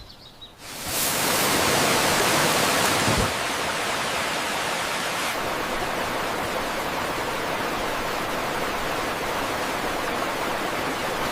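A steady rushing noise with no pitch or rhythm sets in just under a second in. It is loudest for the next two seconds, then settles a little lower and holds steady.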